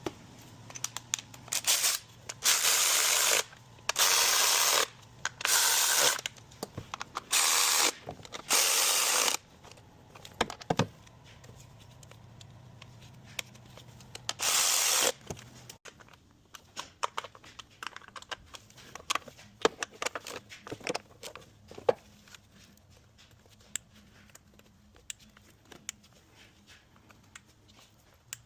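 Compressed air blown in short, loud, hissing blasts, about six in quick succession and one more a few seconds later, followed by scattered light clicks and knocks of tools being handled.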